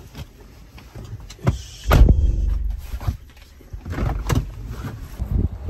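Knocks and a heavy thump in and around a car, with a short whir just after the thump about two seconds in, then a few more sharp knocks.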